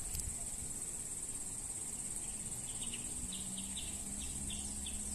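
Steady high-pitched insect chorus, like crickets. About halfway through comes a run of short chirps, with a faint low hum beneath.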